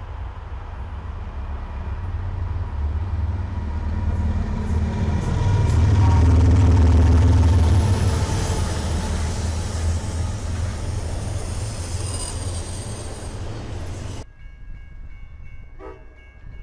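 Two CSX diesel locomotives, one an SD70ACC rebuild, passing close with a heavy low engine rumble. The rumble builds to its loudest about six to eight seconds in as the units go by, then eases as the stack cars follow. About fourteen seconds in the sound cuts to a quieter, more distant passenger train.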